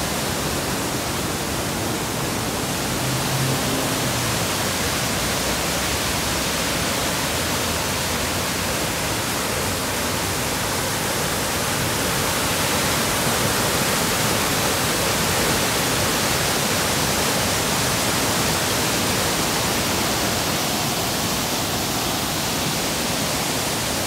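Waterfall and mountain stream: a steady rush of white water pouring over and between boulders.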